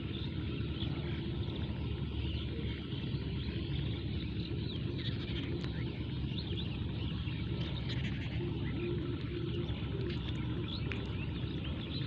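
Steady outdoor background noise with faint scattered chirps and a faint low hum that comes and goes.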